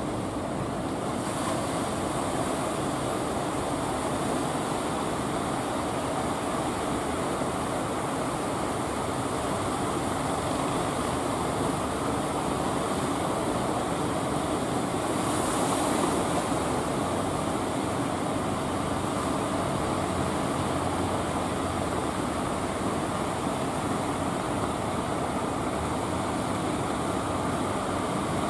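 Ocean surf breaking on a beach: a steady noise of waves, with one louder wave crash about halfway through.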